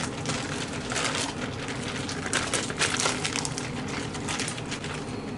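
Plastic bag of batter crinkling and rustling in irregular bursts as it is handled, while pieces of trout are put into it to be coated.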